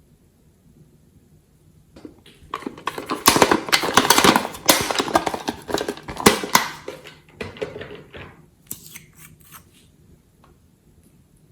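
Glossy slime squished and kneaded by hand: a dense run of sticky clicks and pops that starts about two seconds in and thins out after about eight, with a few last snaps a little later.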